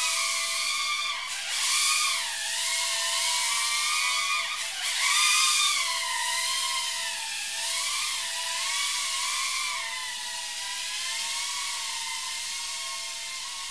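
Tiny whoop micro quadcopter's motors and propellers whining at a high pitch, the whine rising and falling as the throttle changes, swelling loudest about two and five seconds in.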